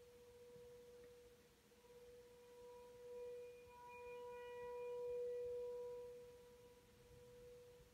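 Distant American Signal T-128 outdoor warning siren sounding a steady tone for a tornado warning test. The tone is faint, swells louder about three to six seconds in as the siren's rotating head turns toward the listener, then fades again.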